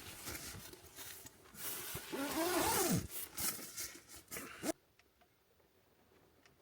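Bedding and clothing rustling as someone settles down to sleep, with a short vocal sound that rises and then falls in pitch partway through. The sound cuts off abruptly about two-thirds of the way in, leaving a quiet interior.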